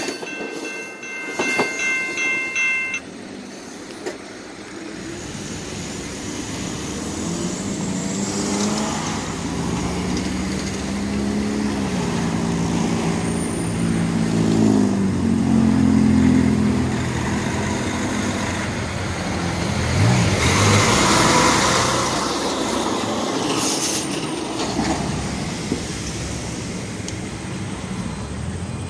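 The last cars of a commuter train clear the level crossing with a high, steady wheel squeal that stops about three seconds in. Road traffic then moves off across the tracks: an engine runs and pulls away, its pitch stepping up and down. A vehicle passes close about two thirds of the way through.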